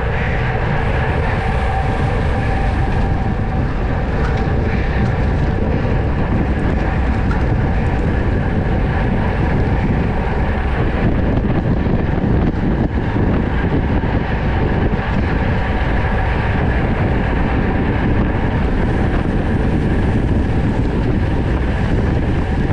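Steady rush of wind and road noise on a GoPro riding on a racing bicycle at speed, with a faint steady whir from the bike underneath.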